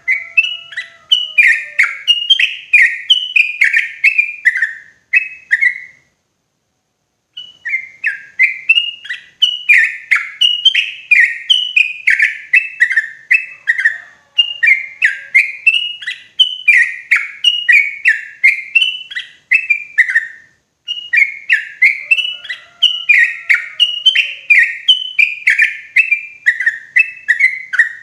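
Yellow-vented bulbul singing a loud run of short, quick chattering notes, about two to three a second, with a break of a second or so about six seconds in before the song carries on.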